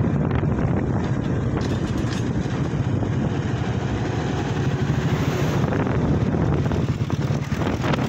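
A two-wheeler's engine running steadily while riding along an open road, mixed with heavy wind rumble on the microphone.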